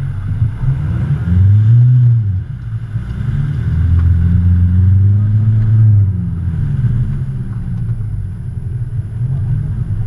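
Off-road 4x4 engine revving under load in two swells, rising and falling, the first about a second in and a longer one from about three to six seconds, then running more steadily.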